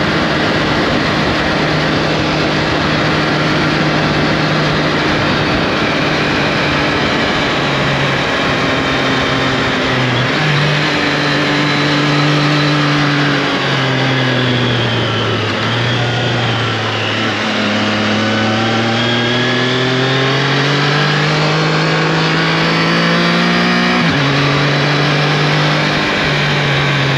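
Triumph Tiger Sport 660 motorcycle's inline three-cylinder engine running under way over a steady rush of noise. Its note falls as it slows about halfway through, then rises steadily as it pulls away. Near the end the pitch drops suddenly at an upshift.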